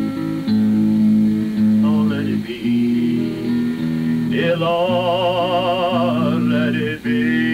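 Acoustic guitar played under a singing voice, slow and sustained, with a long held sung note wavering in vibrato around the middle.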